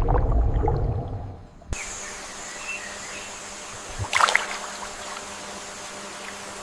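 Water splashing and sloshing for about a second and a half, then an abrupt change to a steady hiss of ambience with a brief crackle about four seconds in.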